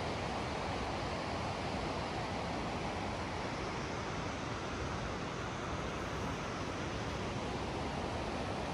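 Wind blowing across a phone's microphone: a steady rushing hiss with an uneven low buffeting underneath.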